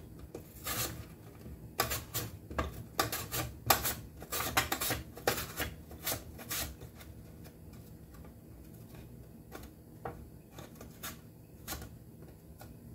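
Potato being sliced on a plastic mandoline slicer: a run of short scraping strokes, about one or two a second, that thin out and grow fainter after about seven seconds.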